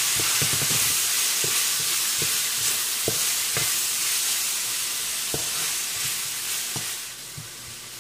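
Onions, bell peppers and black beans sautéing in oil in a metal wok, sizzling steadily while a wooden spatula stirs them with scattered knocks and scrapes against the pan. The sizzle drops away about seven seconds in.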